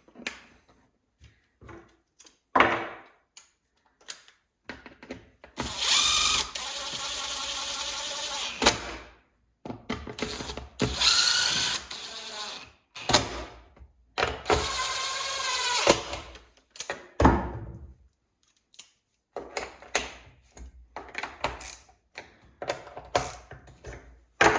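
Power drill/driver running in three bursts of a few seconds each, its motor pitch rising as it drives the screws of the saw's top cover home. Clicks and knocks of parts being handled between the bursts.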